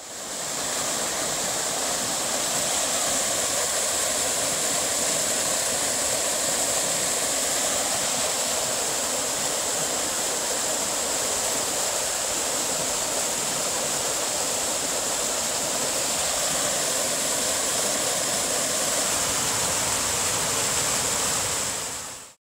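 A mountain creek rushing over rocks and small cascades: a steady, loud rush of white water that fades in at the start.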